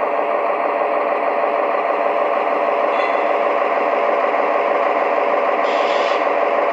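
Lionel TMCC C420 model diesel locomotive's onboard sound system playing its steady diesel engine running sound through the model's small speaker. A short hiss comes near the end.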